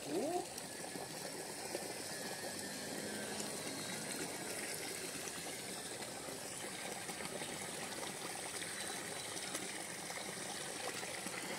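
Steady rush of water flowing in a small ditch, with a faint high-pitched steady tone above it.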